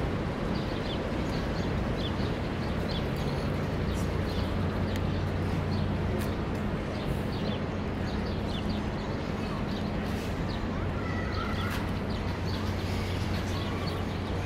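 Urban park ambience: small birds chirping again and again over a steady low hum of city background noise.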